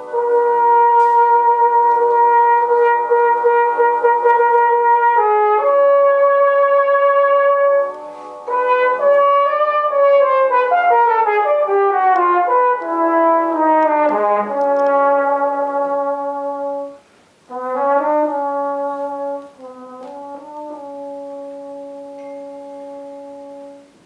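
Brass band of cornets, horns, euphoniums, trombones and tubas playing loud held chords. In the middle the parts move together in a run of notes stepping downward. After a brief pause the band ends on a quieter held chord.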